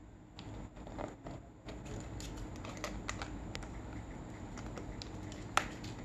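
Rose-ringed parakeet's beak and feet clicking and scratching on a hard plastic jar lid, in irregular small taps, with one sharper click near the end.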